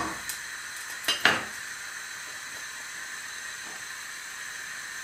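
A knife clinks and scrapes against the rim of a stainless steel saucepan, once briefly at the start and louder about a second in, as butter is knocked off the blade. Under it runs the steady hiss of a lit gas hob burner.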